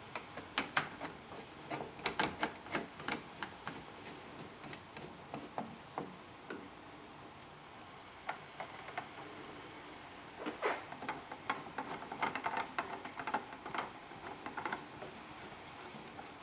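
Irregular clicks, knocks and rubbing of a uPVC door handle and its fixing bolts being handled and fitted, in two busy spells, one near the start and one about ten seconds in.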